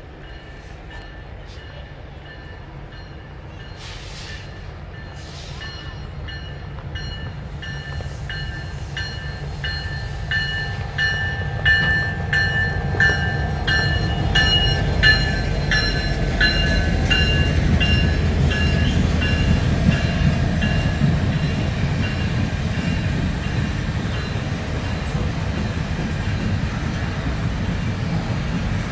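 Canadian Pacific Holiday Train coming in and rolling past. The low rumble of the locomotives and cars grows louder and then holds, while a bell rings in steady strokes, about two a second, dying away about three-quarters of the way through.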